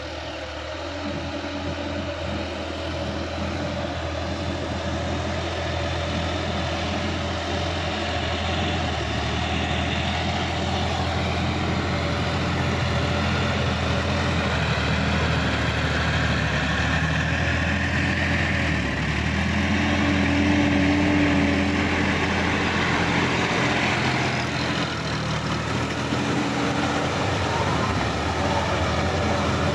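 Sonalika DI-50 RX diesel tractor engine running steadily under load while its rear rotary tiller churns flooded paddy mud, growing louder as it comes closer.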